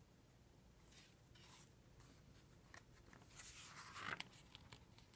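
Faint swish and rustle of a picture book's paper page being turned, about three and a half seconds in, with a few light handling clicks before it; otherwise near silence.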